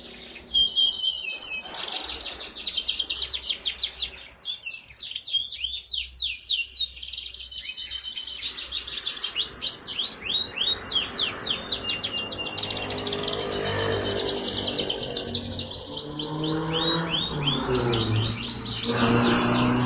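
Young domestic canary, about four months old, singing a long, fast trilling song of rapidly repeated notes. A low drone sits under the song in the last few seconds.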